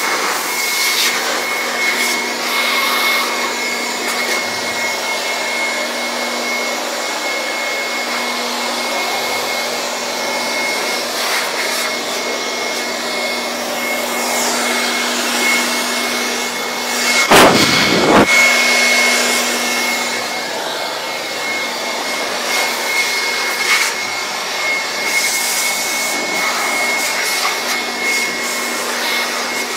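Handheld electric dust blower running steadily inside an open desktop computer case: a constant motor hum and high whine over rushing air. About two-thirds of the way through, a brief louder rush of air with a low rumble.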